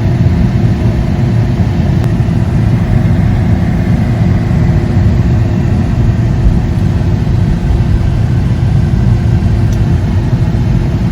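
Steady low rumble of road and tyre noise inside a moving car's cabin, with a faint steady hum.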